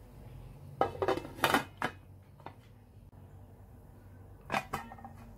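Metal pot lid clattering against the rim of an aluminium cooking pot: a quick run of clinks about a second in, and a couple more near the end.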